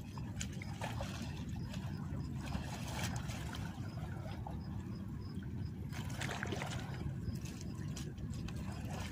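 Water sloshing and trickling at the shoreline over a steady low rumble, with brief louder bursts of sloshing about three seconds and six seconds in.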